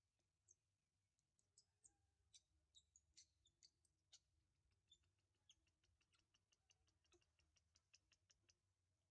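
Near silence, with faint, short high-pitched ticks and chirps, scattered at first and coming several a second in the second half.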